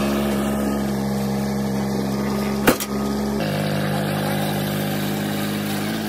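Engine of a compact tracked loader running steadily, with a single sharp knock a little under three seconds in and a slight change in its tone shortly after.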